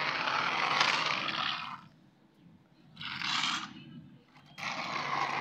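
Hard plastic wheels of a toy dump truck rolling and scraping on rough concrete in three pushes: a long rush at the start, a short one about three seconds in, and another near the end.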